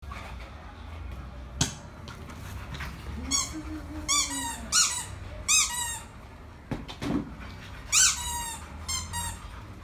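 A run of short, high-pitched squeaks, each rising and falling in pitch: four come in quick succession about three seconds in and three more near the end. A couple of sharp knocks fall between them.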